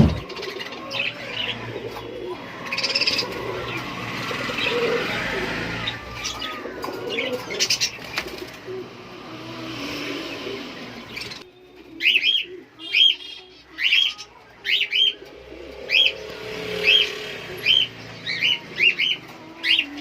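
Caged pigeons cooing among small birds calling. From about halfway on, one bird gives a run of sharp, high chirps, about two a second.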